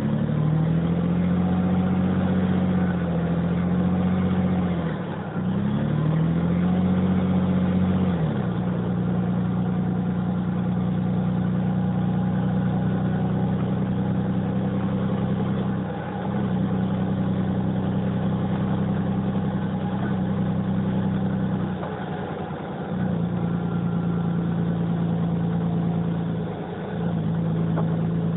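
Cummins LTA10-B252 turbocharged straight-six diesel of a Dennis Dragon double-decker bus running under way. Its revs climb and drop back twice early on, then hold steady for long stretches, with brief dips in engine speed.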